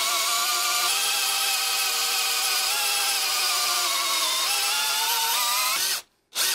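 Drill in low gear with its clutch at maximum, driving the brass cutter plug of an Aladdin Easy Fit isolator valve into the pipe through a deep socket. Its motor runs with a steady whine that wavers in pitch as the plug bites, then stops suddenly about six seconds in, with a brief burst of running just before the end.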